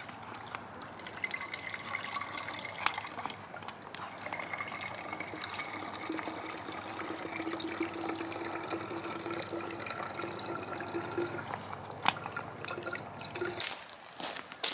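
Filtered lake water trickling from a handheld water filter into a plastic bottle, the bottle giving a steady pitched ring as it fills through the middle of the stretch. Near the end the filling stops.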